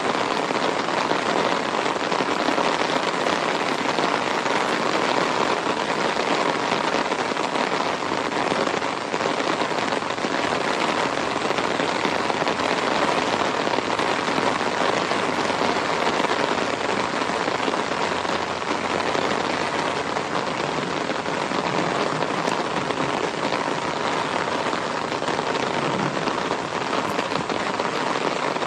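Medium-to-heavy rain falling steadily, an even, dense patter of drops that neither builds nor eases.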